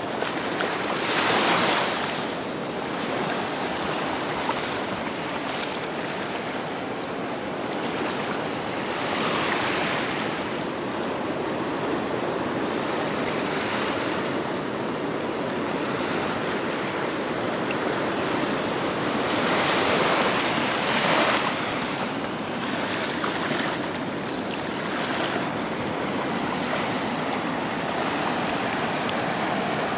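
Small ocean waves washing in over a shallow sandy beach in a steady rush, swelling louder three times as bigger waves surge in.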